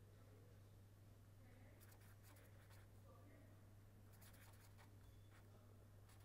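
Faint scratching of a pen on paper as words are written by hand, in short clusters of strokes, over a steady low electrical hum.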